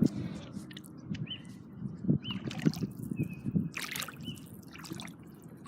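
Floodwater sloshing and splashing around boots as someone wades through it, in a run of irregular splashes.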